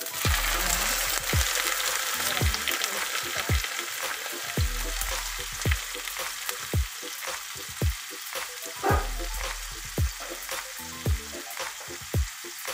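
Whole chicken frying in hot butter with garlic in a roasting pan: a steady sizzling hiss of fat spitting under the meat. Under it a low beat repeats about once a second, like a kick drum in background music.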